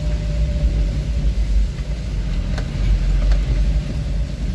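Steady low rumble of a vehicle driving along a road, engine and road noise together, with a couple of faint clicks in the middle.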